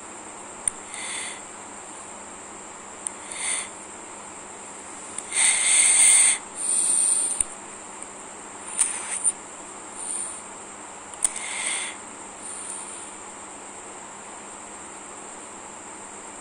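Insect-like high chirps come every second or two, the loudest a longer pair about five to seven seconds in, over a steady high-pitched whine, with a few faint clicks.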